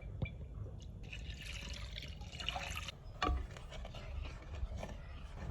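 Liquid being poured and splashing, with a sharp knock about three seconds in.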